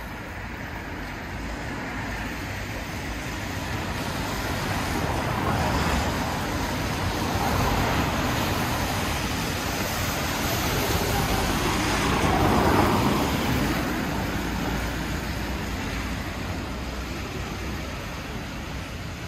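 Street traffic: a road vehicle passes close by, its noise building slowly, peaking about two-thirds of the way through with a falling pitch as it goes past, then fading back into the general traffic.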